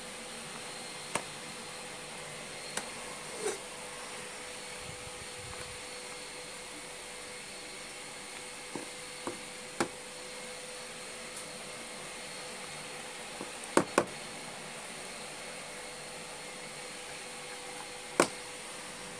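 A metal spoon knocking and clinking against a steel pot and a plastic container while cooked rice is scooped across: about nine short, sharp knocks at irregular intervals, the loudest a quick double knock about two-thirds of the way through. Under them runs a steady hiss with a faint hum.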